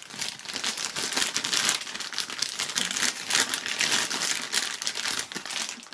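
Clear plastic bags crinkling and rustling without a break as hands open them and pull parts out.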